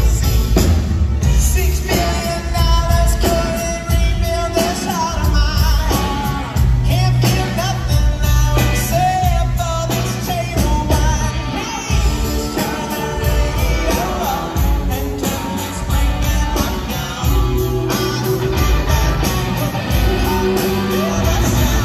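Live pop-rock band playing loud: a male lead singer over electric guitar and drums, with a steady beat and heavy bass.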